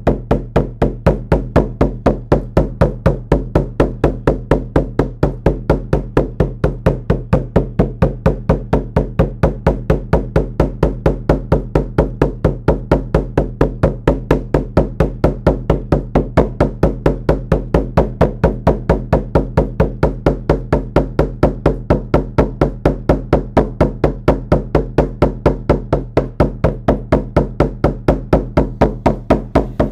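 Hand-held shamanic frame drum with a rawhide-laced head, beaten with a padded beater in a steady, even beat of about four strokes a second, each stroke low in pitch. This is the monotonous journey beat that carries a shamanic drum journey.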